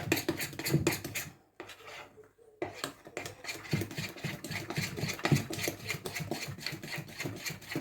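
Spoon stirring cake batter in a mixing bowl: quick repeated scraping strokes against the bowl. The strokes pause for about a second, a second and a half in, then resume.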